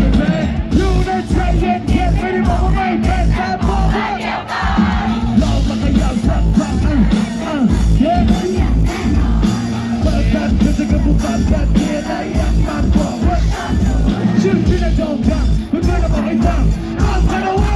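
Live hip-hop performance played loud over a PA: a pounding bass beat with a rapped and sung vocal line, and a crowd shouting along.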